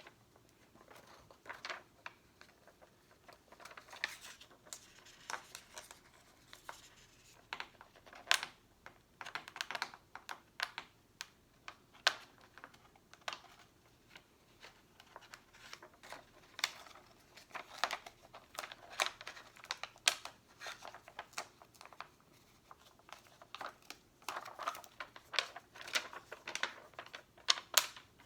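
Stickers being handled, peeled and pressed onto a box: crinkling of sticker sheets and peeling, sticky crackles, with many short sharp taps and clicks.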